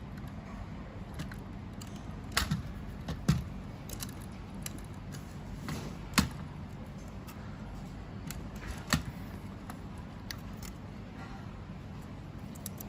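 Scattered light clicks and knocks as machine parts and a cable are handled during reassembly, a few sharp ones spread through, over a steady low background hum.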